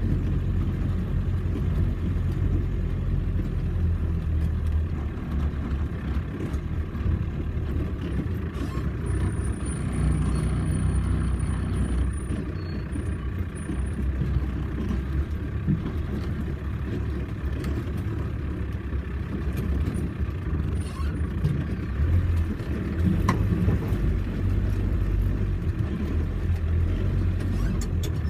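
Off-road vehicle's engine running, a steady low rumble that carries on throughout.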